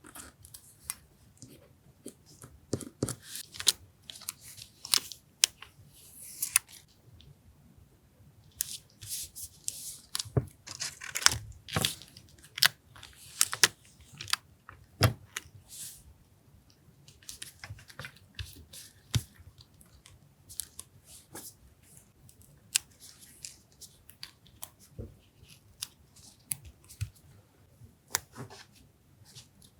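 Paper and collage materials being handled, cut and torn for a journal spread: bursts of rustling and crinkling paper mixed with sharp clicks and taps, coming and going irregularly.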